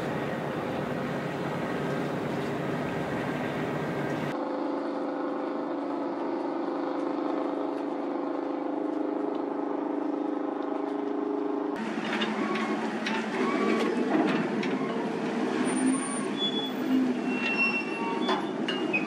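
Steady low engine drone from a ship in harbour, made of several level low tones over a rumble. The sound changes abruptly twice, about four seconds in and again about twelve seconds in. The last part carries scattered short high tones, clicks and faint voices.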